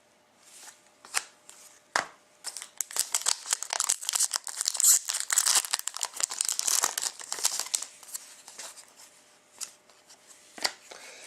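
A foil trading-card pack wrapper torn open and crinkled by hand: a sharp click about two seconds in, then several seconds of dense crackling that fades out, with one more click near the end.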